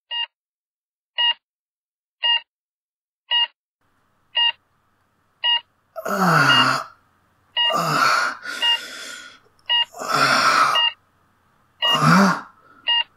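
Hospital heart monitor beeping steadily, about once a second. From about six seconds in, a low voice groans four times, each groan drawn out and sliding in pitch, like a patient coming round.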